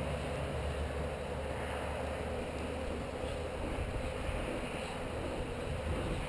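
Honeybees buzzing steadily around an open hive, a constant drone, with a low rumble of wind on the microphone.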